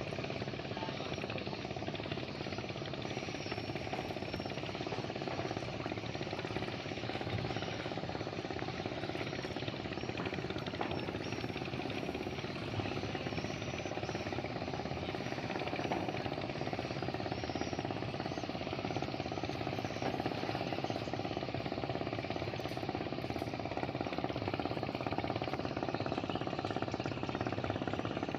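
Speedboat engine running steadily at speed, a continuous rough drone that neither rises nor falls.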